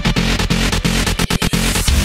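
Electronic dance music with a fast, dense beat and a heavy sustained bass.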